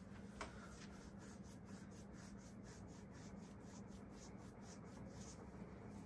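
Con-tech 60-inch commercial ceiling fan running at medium-high speed, faint, with a steady low motor hum. From about a second in until just past five seconds there is a quick, even series of soft raspy strokes, about six a second.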